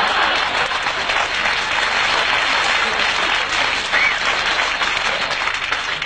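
Studio audience applauding, a dense steady clapping that stops near the end.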